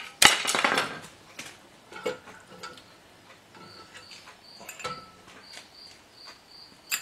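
Dana 30 differential carrier with its ring gear popping free of the axle housing under pry bars: one sharp metal knock just after the start. A few light metallic clinks follow as the carrier and its bearings are lifted out of the housing.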